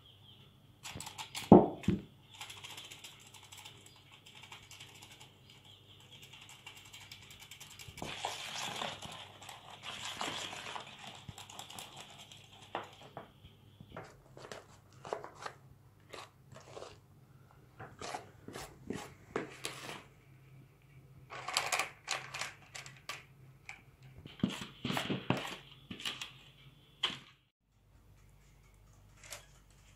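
A hand-operated metal flour sifter rattles and clicks as cocoa is sifted into batter. Then a spatula scrapes and knocks around a plastic mixing bowl in uneven strokes.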